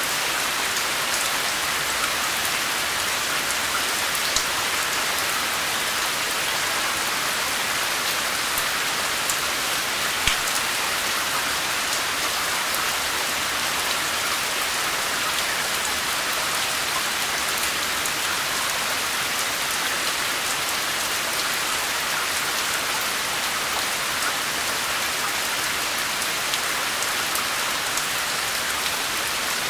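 Steady, even rain falling on a surface, with scattered sharper drop ticks now and then.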